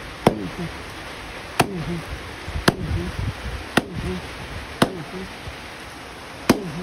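Blade chopping into palmyra palm fruit (ice apple): six sharp strikes, about one a second.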